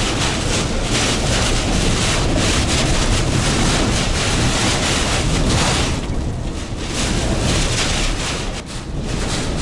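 Typhoon wind gusting hard around a heavy truck: a loud, rushing noise that surges and eases, easing off briefly around six seconds in and again near the end.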